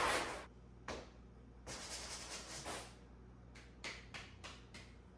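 Handheld scrubbing pad rubbing old glue and foam off a fiberglass headliner board in short scraping strokes. A louder stretch of scrubbing tails off at the start, a quieter run follows, and a handful of short strokes come near the end.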